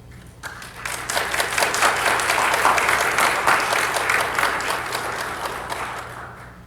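Audience applauding, starting about half a second in, building to a full round and tapering off near the end.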